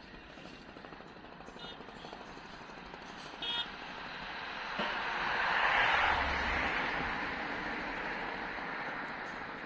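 A road vehicle passing close by, its noise swelling to a peak about six seconds in and then fading. Before it, two short horn toots, the second louder.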